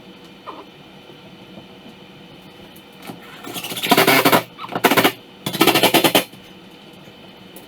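Cordless power driver running in three short bursts in the second half, driving screws, with a fast rattling pulse through each burst.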